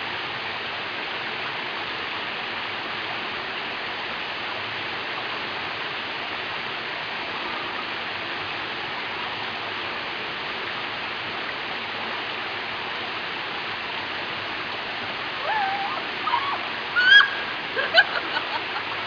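Steady rushing of water over the rocks of a shallow stream just below a waterfall. Near the end a person's voice calls out briefly a few times over it.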